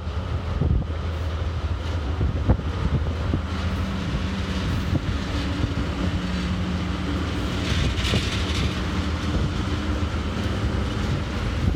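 TasRail TR-class diesel-electric locomotives running steadily while shunting container wagons, their engines giving a low drone. A few sharp clicks of wheels and couplings come early on, and a brief high hiss comes about eight seconds in.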